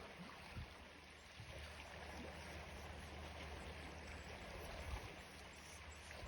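Faint, steady rush of a stream running over rocks.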